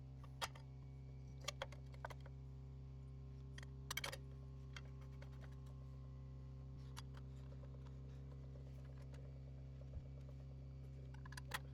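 Scattered light clicks and taps of small parts and tools being handled on the tiller, over a steady low hum.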